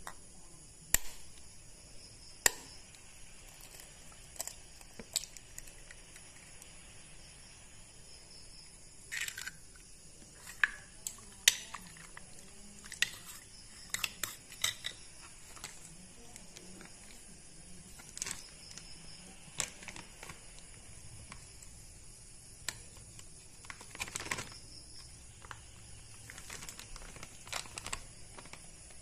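Irregular sharp clicks and taps of a spoon against a stainless steel bowl as raw marinated chicken pieces are stirred with egg, over a faint steady hiss.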